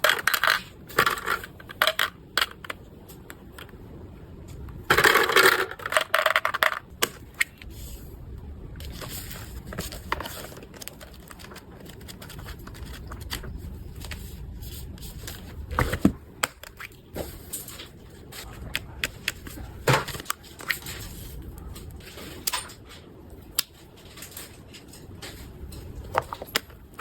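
Hands handling packaging and small items: bursts of crinkling and crushing near the start and again about five seconds in, followed by scattered clicks, taps and scrapes.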